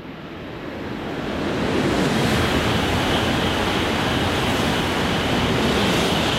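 Tohoku Shinkansen Hayate–Komachi coupled train passing through the station at speed: a rushing roar that builds over about two seconds and then holds steady, with a thin high whine over it in the later part.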